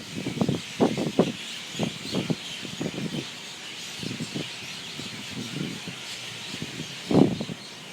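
Dense chorus of many birds chirping together in a roost tree at sundown. Intermittent low gusts of wind buffet the microphone and are the loudest sounds.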